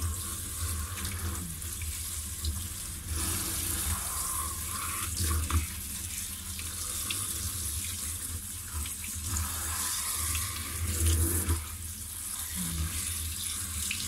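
Tap water running steadily from a kitchen faucet into a stainless steel sink, splashing over lettuce leaves as they are rubbed clean by hand under the stream.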